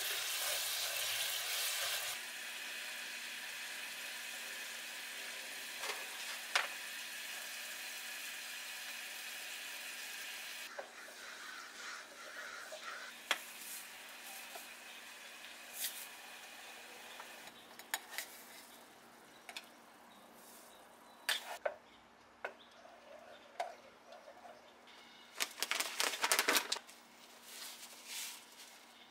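Food sizzling in a frying pan: loud for the first two seconds, then a softer, steady hiss that fades after about ten seconds. Scattered clicks and knocks of utensils and cookware follow, with a louder clatter about twenty-six seconds in.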